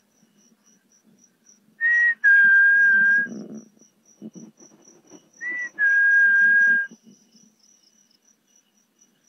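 A two-note whistle, a short higher note followed by a longer steady lower one, sounded twice about three and a half seconds apart. Crickets chirp in a steady pulse underneath.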